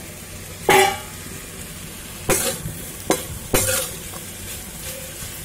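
Potato sticks sizzling in hot oil in a steel kadai while a metal spatula stirs them, clanking and scraping against the pan about four times.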